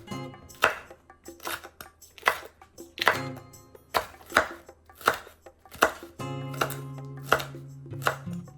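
A knife chopping a bell pepper on a cutting board: sharp separate cuts about one or two a second, over background music.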